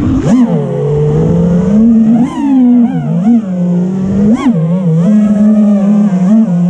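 Five-inch FPV freestyle quadcopter's brushless motors (Xing 2 2207 on Gemfan 51466 props) whining, heard from the camera on the quad itself. The pitch swings up and down with the throttle, with sharp punches about a third of a second in, near two and a half seconds and past four seconds, settling into a steadier hum near the end.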